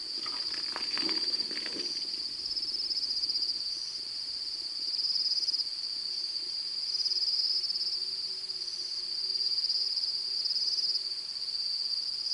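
Night insect chorus: crickets chirring in a steady high trill that pulses slightly. A short burst of noise comes in the first two seconds.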